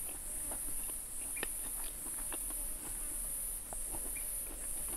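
A high-pitched insect chorus shrilling steadily, pulsing on and off about once a second, with scattered small clicks and ticks.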